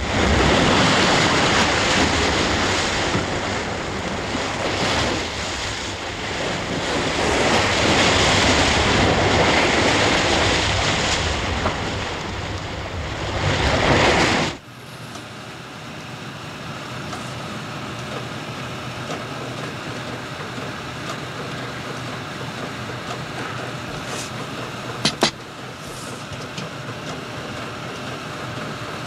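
Wind and sea rushing past a ship under way, loud and unsteady. About halfway through it cuts to a steady low hum of shipboard machinery, with two sharp clicks near the end.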